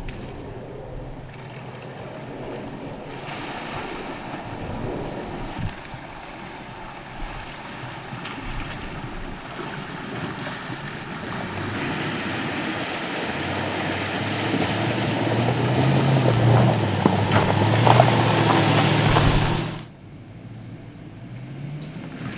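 2010 Range Rover wading through a water crossing: its engine pulling under load beneath a rising rush of splashing, surging water. The engine note climbs as the noise grows loudest. The water noise cuts off abruptly near the end, leaving a quieter engine sound.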